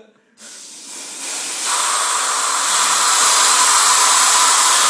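Compressed air hissing from an air-compressor blow gun held at the lips, starting faintly about half a second in and growing to a loud, steady hiss by about two seconds.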